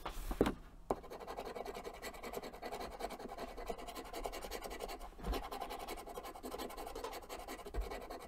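A coin scraping rapidly back and forth across a scratch-off card, rubbing off the coating in quick, even strokes that start about a second in.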